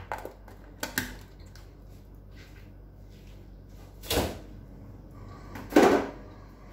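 A few sharp knocks and bumps in a kitchen, four in all. The two loudest come about four and six seconds in.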